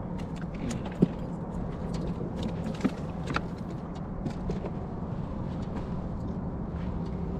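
Scattered clicks and knocks of a fishing rod and tackle being handled aboard a boat, over a steady low hum.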